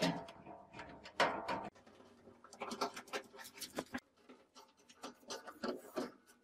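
Gloved hands working on a steel oil drum, making irregular scratching, rubbing and light clicks as rubber edge trim is pressed onto the metal rim. There is a louder knock about a second in.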